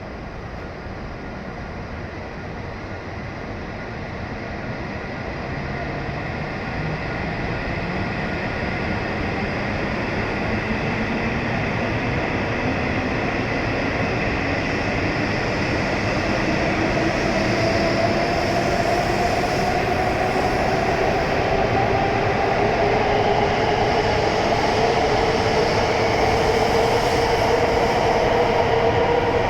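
E7 series Shinkansen pulling out of the station, its traction motors whining upward in pitch as it gathers speed. It grows steadily louder throughout.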